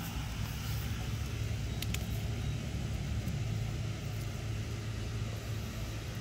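A steady low machine hum over an even outdoor background noise, with one short click about two seconds in.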